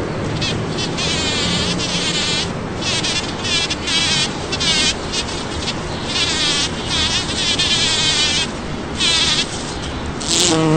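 A bumblebee buzzing as it works in and out of rose blossoms, with a steady low hum and repeated higher, wavering bursts that come and go every second or two. The buzz sounds different when the bee is inside a flower.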